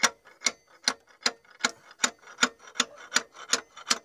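Steady, evenly spaced hammer taps, about two and a half a second, driving a piston and connecting rod through the cylinder liner of an SMD-62 diesel engine.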